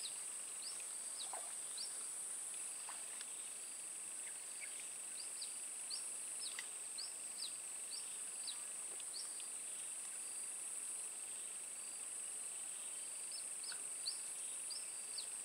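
Swamp ambience: a steady, high-pitched insect drone with a fainter lower hum under it, and short, high bird chirps repeating in quick runs of a few a second.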